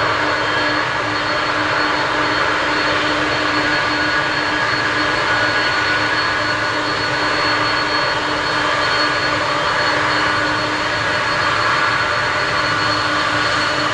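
Four turbofan engines of a Boeing 747-400 taxiing close by: a steady jet rush with a constant whine on top.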